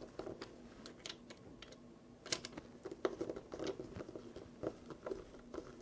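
Faint, scattered clicks and small taps of a screwdriver and the plastic pump housing being handled while the retention-ring screws are tightened down.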